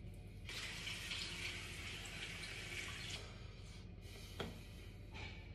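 Bathroom tap running into a sink for about three seconds, starting about half a second in, as face-wash foam is rinsed off. A single sharp click follows about four and a half seconds in.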